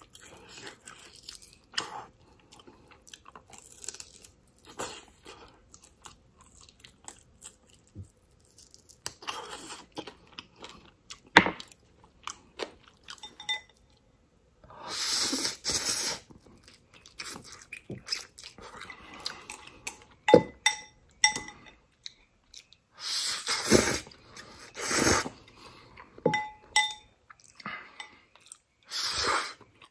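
Close-up eating sounds: wet chewing and biting of Korean short rib and instant noodles, with a few louder slurps of noodles in the second half. Short light clinks of chopsticks against a glass bowl come in between.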